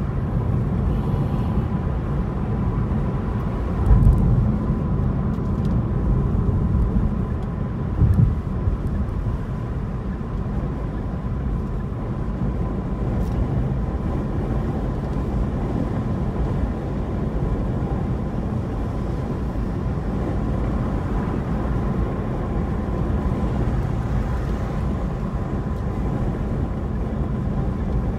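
Car in motion: steady low road and engine noise, with two brief thumps about four and eight seconds in.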